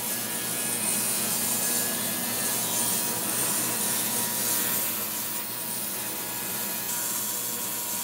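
Ultrasonic cleaner running: a steady hiss from its bath of warm water and Simple Green, with a faint steady tone, as it cleans a clogged mower carburetor.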